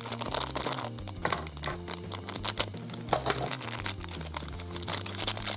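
Thin yellow plastic wrapper crinkling and crackling as hands peel it off a Minions Minis toy ball, in many quick, irregular crackles.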